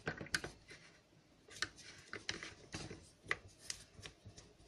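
Hands handling a plastic army canteen and its screw cap: irregular light clicks and rubbing of plastic, with a short lull about a second in.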